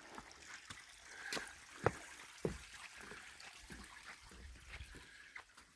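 Faint trickle of a shallow creek running under a wooden footbridge, with scattered footsteps knocking on the bridge planks.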